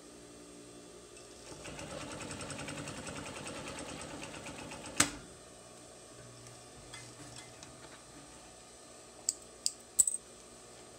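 Pfaff 463 industrial lockstitch sewing machine stitching at a fast, even rate for about three seconds, stopping with one sharp click. Near the end come three quick sharp snips from thread snips.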